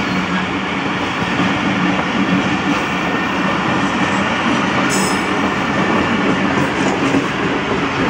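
Pakistan Railways passenger coaches rolling past close by: a steady, loud rumble of steel wheels on the rails, with a brief sharp click about five seconds in.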